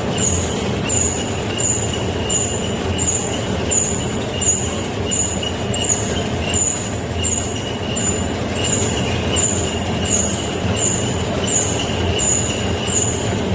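Rice-cake forming machine for kkultteok and songpyeon running steadily, with a high tone repeating about one and a half times a second over a constant mechanical noise.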